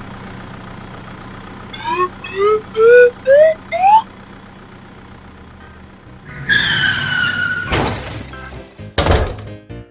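Cartoon sound effects over a low steady hum: five short whistle-like notes about two seconds in, each gliding upward and each higher than the last, then a swoosh with a sliding tone and two sharp hits near the end.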